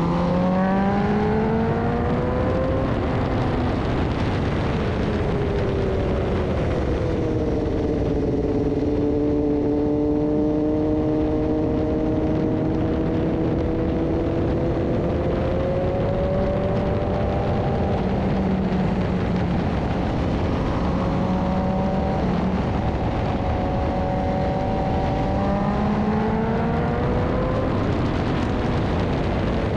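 BMW S1000RR sport bike's inline-four engine heard from on the bike at speed, its note rising at the start, settling through the middle, dropping back twice and climbing again near the end, under a steady rush of wind.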